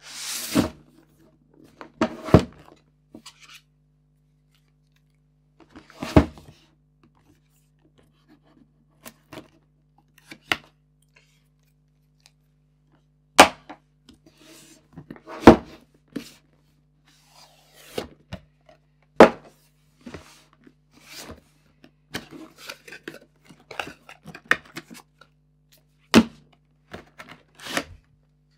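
Cardboard product box and its contents handled on a desk while a USB microphone is unboxed: a series of sharp knocks and thunks as the box is set down, opened and emptied, with smaller clicks and rustling between, more of them in the last few seconds. A steady low hum runs underneath.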